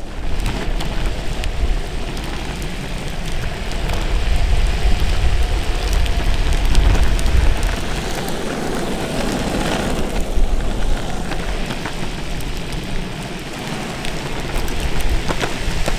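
Wheels of an Onan four-wheel-drive hub-motor electric skateboard rolling over rough asphalt, heard from a camera on the board: a steady, deep rumble with a crackling hiss over it.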